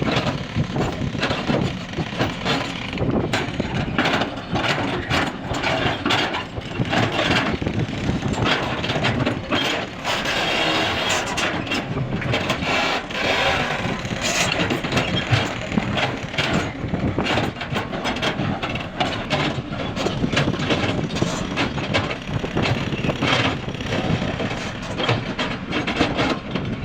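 Hydraulic excavator working while it digs: steady engine noise with frequent knocks and scrapes from the bucket and arm.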